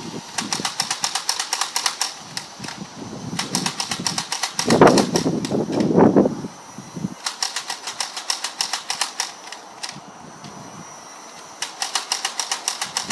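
Nerf Hail-Fire motorised dart blaster being rapid-fired: fast runs of clicks, about six a second, in four bursts with short pauses between, over a steady high motor whine. A louder, lower sound comes about five seconds in.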